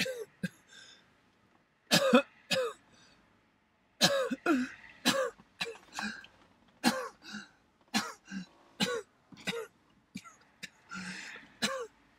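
A person coughing and clearing their throat over and over: a long run of short coughs, about one or two a second, loudest about two seconds in.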